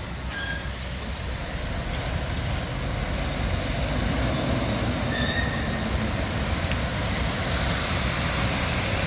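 Steady rumbling noise, even and unbroken, growing slightly louder over the first few seconds.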